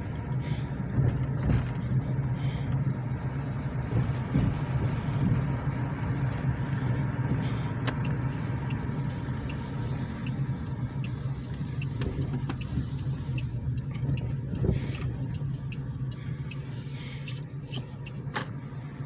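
Car driving slowly, heard from inside the cabin: a steady low engine and road hum.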